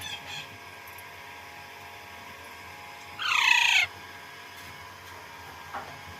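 Alexandrine parakeet giving one loud, harsh screech with falling pitch about three seconds in, lasting just over half a second, with fainter short calls at the start and near the end.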